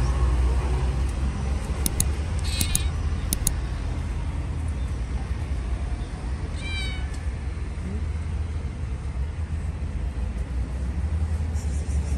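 A stray cat meows once, a short call about halfway through, over a steady low rumble of traffic.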